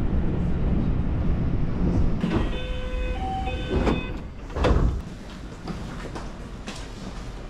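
Commuter train running with a steady low rumble, then a short electronic chime of clear tones, and the doors sliding open with a loud whoosh about four and a half seconds in as the train stands at the station.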